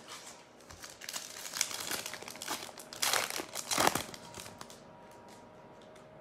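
An NBA Hoops trading-card pack wrapper being torn open and crinkled, with two louder crinkles about three and four seconds in.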